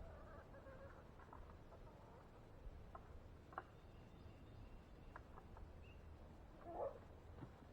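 Near silence with a low rumble, a few faint ticks, and one brief faint bird call about seven seconds in.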